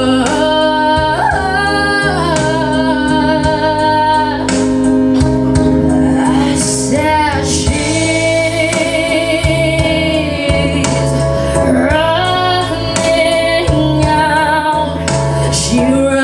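A woman singing solo into a handheld microphone over instrumental accompaniment, amplified through the stage speakers. She holds long notes, several with a wavering vibrato.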